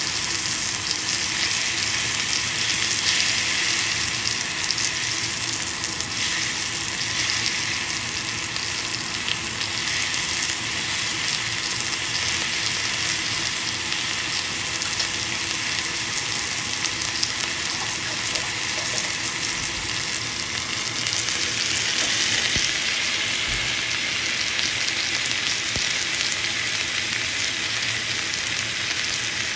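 T-bone steak sizzling in melting butter in a hot skillet: a steady frying hiss that grows a little louder about two-thirds of the way through.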